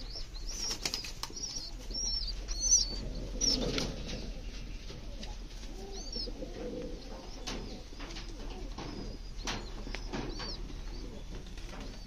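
Caged fancy pigeons cooing, with scattered wing flaps and knocks against the wire mesh and a louder cluster about three seconds in. Short high chirps come repeatedly, most of them in the first few seconds.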